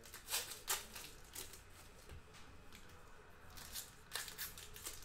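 Faint crinkling and rustling of trading-card packs and cards being handled and opened, a few short crackles soon after the start and several more near the end.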